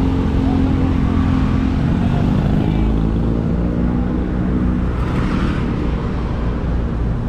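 Motor vehicle running steadily with a deep engine and road rumble, its engine hum fading a little about five seconds in.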